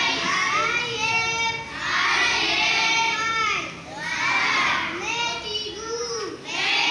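Many children reading aloud at the same time, their voices overlapping in a sing-song recitation.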